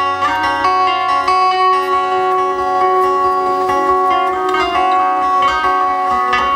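Instrumental music led by guitar: plucked notes over held chords, with no singing.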